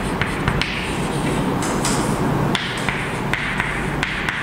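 Chalk writing on a blackboard: quick taps and short scratchy strokes as letters are chalked, several a second, over a steady low hum.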